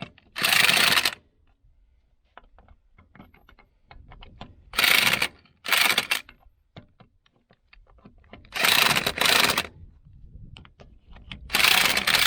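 Impact wrench driving lug nuts onto a loader's rear wheel in several short bursts, about half a second to a second each, with small metal clicks of handling between them.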